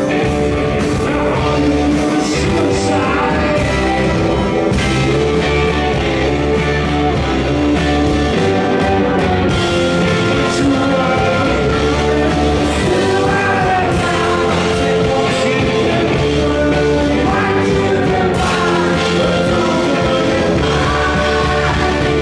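Live rock band playing electric guitars, bass, drums and keyboard, with a man singing lead over them.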